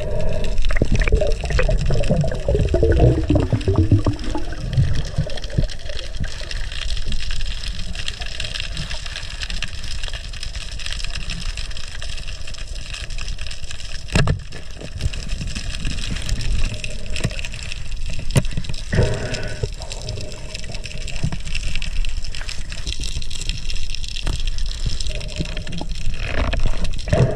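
Underwater ambience heard through a waterproof action-camera housing: a steady, muffled rush and rumble of water as a freediver swims. A few sharp clicks stand out, one in the middle and two close together a little later.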